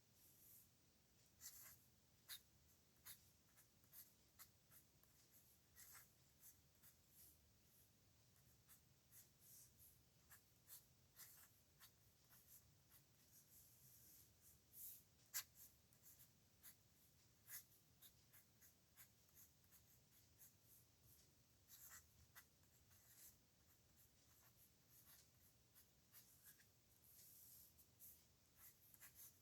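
Faint scratching of a pen on paper: handwriting in short, irregular strokes.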